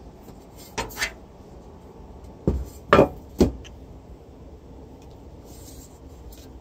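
Handling noise from a turntable's aluminium platter on a workbench: a few sharp metallic knocks and clatters, two lighter ones about a second in, then three louder ones a little later.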